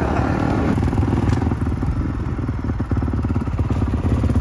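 Brand-new 2021 Kawasaki KX450's single-cylinder four-stroke engine running steadily as the dirt bike rides along the road.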